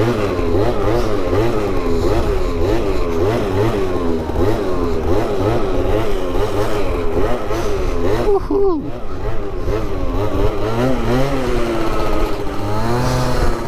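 Small two-stroke scooter engine revving up and down over and over as the throttle is worked, its pitch rising and falling about twice a second, with one sharp drop in revs about eight and a half seconds in.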